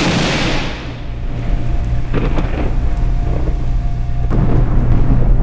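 Intro sound effect for a logo animation: a sudden loud blast that fades into a deep, steady thunder-like rumble with a few faint crackles.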